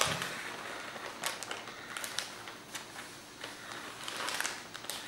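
Plastic bag of shredded cheese crinkling as it is tipped and shaken out by hand, a few scattered crackles with a longer rustle about four seconds in.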